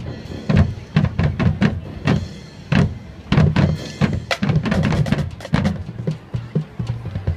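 High school marching band playing, percussion to the fore: many sharp drum hits over a full, sustained low end.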